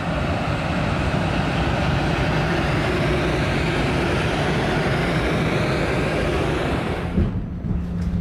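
Siemens Vectron (BR 193) electric locomotive departing and passing close, hauling double-deck coaches, with the steady noise of its motors and the wheels on the rails. About seven seconds in, the sound cuts to a steady low hum from inside the moving train.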